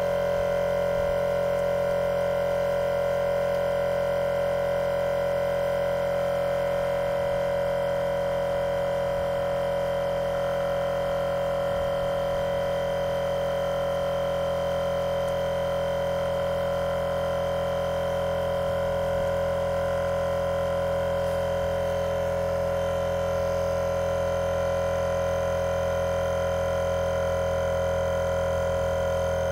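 Procraft LK400 twin-cylinder 12 V car tyre compressor running continuously with a steady drone while it pumps up a car tyre.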